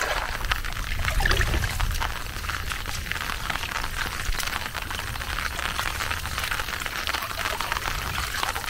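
Steady splashing, trickling water noise, a continuous pattering hiss.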